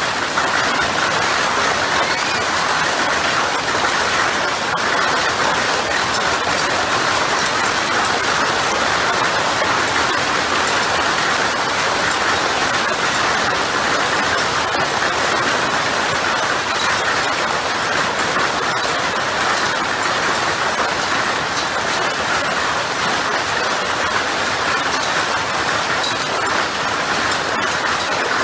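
Hail pelting down steadily into a swimming pool and onto the gravel and plants around it: a loud, even hiss of countless small impacts and splashes that keeps up without a break.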